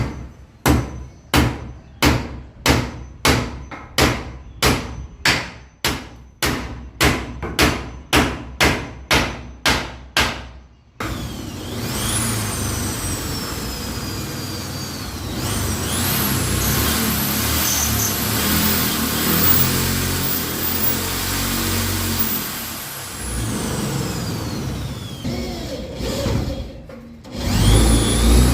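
A hammer driving a nail with steady, evenly spaced blows, about two a second, for roughly the first eleven seconds. Then a Vonder electric drill runs, its motor whine rising and falling as it speeds up and slows down.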